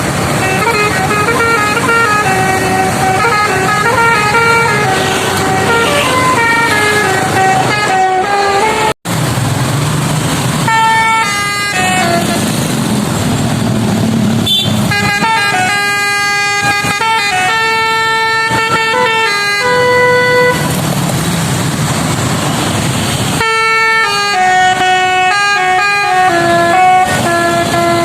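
Basuri V1 telolet horn, a multi-trumpet bus air horn, playing a tune as a run of held, stepped notes. The sound cuts out for an instant about nine seconds in.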